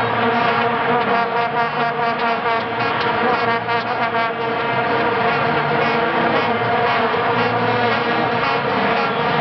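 Massed vuvuzelas blown by a stadium crowd: a loud, steady one-note drone with many overtones and no pause.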